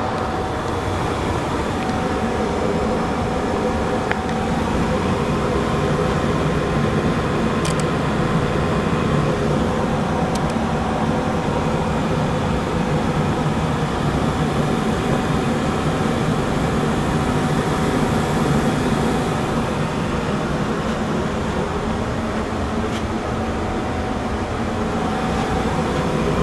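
Ruud gas furnace running steadily at full heat: burners firing and the blower moving air, with a few faint clicks.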